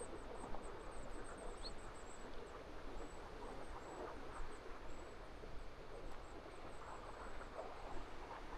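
Footsteps on a rough path, with faint, high, thin chirping made of quick short notes repeated several times a second.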